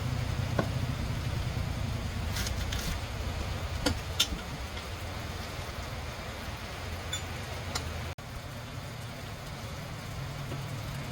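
A machine running steadily with a low hum, with a few sharp clicks and taps over it.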